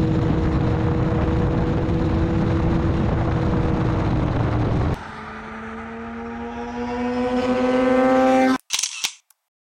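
Yamaha FZ6 motorcycle's inline-four engine at speed, heard from on the bike: a steady engine note under loud wind roar. About five seconds in, the sound changes to a clearer engine note that rises steadily in pitch and loudness as the bike accelerates toward the listener. It cuts off abruptly near the end, followed by silence.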